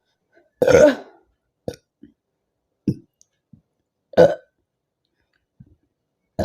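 A woman burping from carbonated soda: two long, loud burps, about half a second in and a little after four seconds, with a few short, quieter sounds between them and another burp starting at the very end.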